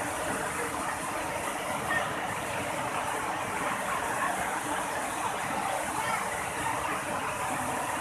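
Water rushing steadily over a wide rock-slab waterfall, an even unbroken hiss.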